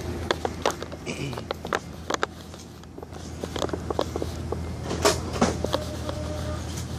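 Irregular clicks and light knocks of a phone being handled and carried, loudest a little after the middle, over a steady low hum.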